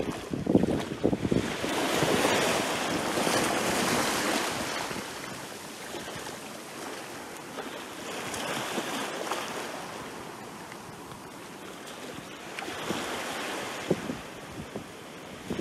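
Small waves breaking and washing up a beach, then draining back, in slow swelling surges: loudest a few seconds in, again about halfway, and once more near the end.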